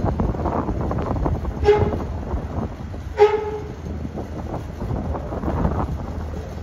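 Two short vehicle horn toots about a second and a half apart, each one steady note, over a steady low engine rumble.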